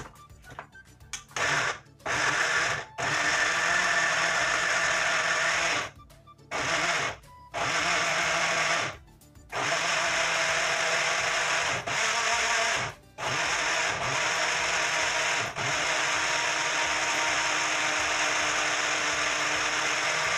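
Personal cup blender motor whirring as it blends strawberries and banana into a shake. It is run in a series of separate runs: short bursts with gaps at first, then longer runs of several seconds with only brief breaks.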